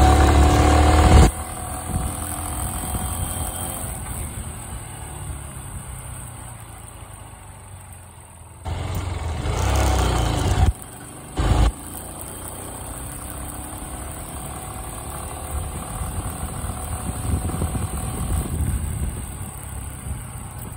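Small motorcycle engine running underway, with a steady low rumble. Loud rushes of wind on the microphone come at the start, again for about two seconds around halfway, and once more briefly just after.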